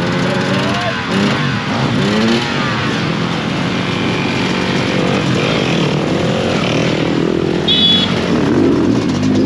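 Several off-road motorcycle engines running, their revs rising and falling and overlapping.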